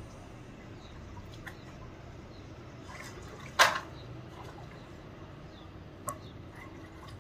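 Water in a well splashing and dripping, stirred by a swimming spectacled cobra and a rescue stick, with one loud sharp hit about three and a half seconds in.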